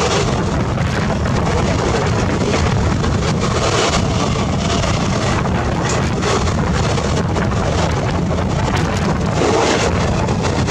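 Steady, loud rush of two passenger trains passing on adjacent tracks: wheels running on the rails and the air rushing between the coaches of the train going by close alongside. Heard from an open doorway of a moving train, with wind on the microphone.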